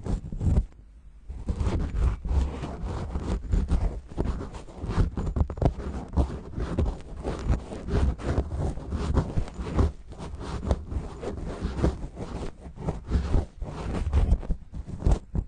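Cotton swab rubbing and scratching directly on a microphone's perforated metal grille: dense, irregular crackling scrapes with a heavy low rumble, easing off briefly about a second in.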